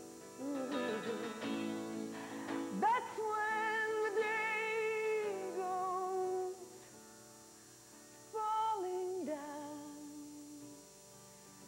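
A woman singing long, wavering held notes over a strummed acoustic guitar, in phrases with a quieter pause between them.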